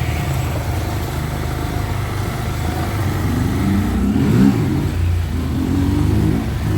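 Motor vehicle engine running steadily at low speed, with a slight rise in pitch about four seconds in.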